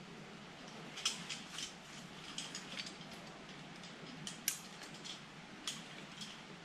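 Irregular light clicks and ticks, about a dozen short sharp ones scattered over several seconds, over a faint steady background hiss.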